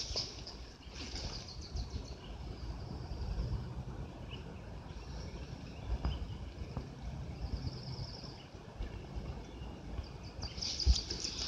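Quiet outdoor ambience: a steady low rumble with a few soft knocks, and faint repeated high trills that come and go four or five times.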